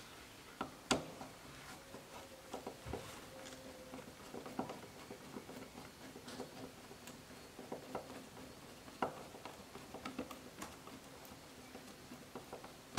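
Screwdriver clicking, tapping and scraping irregularly against the plastic and metal of a Mercedes W124's side-mirror mounting in the door frame, the sharpest clicks about a second in and about nine seconds in.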